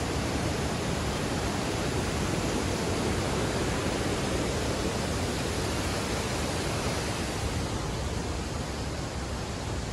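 Large waterfall and rapids in full, churning flow, a loud, steady rush of white water with no break.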